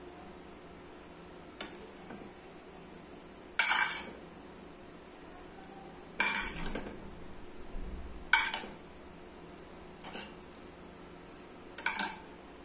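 Serving utensils clinking and scraping against cooking pots and a glass plate as food is dished up: about half a dozen sharp clinks, a second or two apart.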